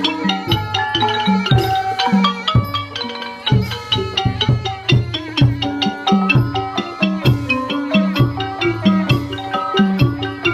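Thai folk piphat ensemble playing: quick runs of struck, pitched notes like xylophone and gong-circle melody over steady low drum beats.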